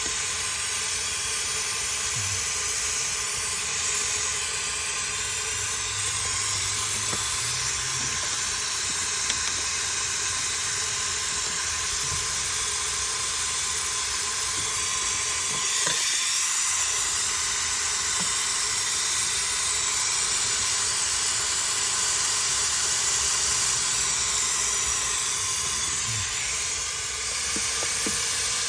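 Compressed air hissing steadily during an air pressure test of a car's cooling system, then cutting off suddenly at the end.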